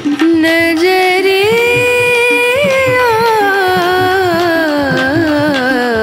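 Background music with one long melodic line that slides slowly up in pitch and then back down.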